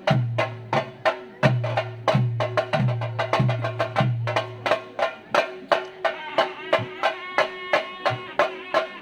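Traditional temple-festival percussion music: quick, sharp drum strokes over deep booming beats that drop slightly in pitch, with a steady held drone. A pitched melody line joins in about halfway through.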